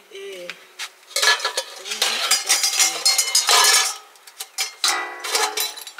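Metal dishes and spoons clattering and ringing as they are rummaged out of a hanging basket. A dense jangle lasts about three seconds, then a few lighter knocks follow.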